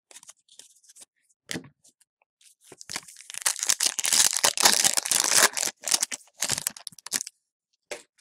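A trading card pack's wrapper being torn open by hand: light rustling and crinkling at first, then from about three seconds in a loud stretch of tearing and crinkling lasting nearly three seconds, followed by a few shorter crinkles.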